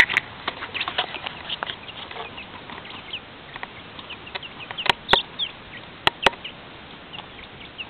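Young chicks peeping, with many short high cheeps overlapping. A few sharp clicks or taps come in two quick pairs about five and six seconds in.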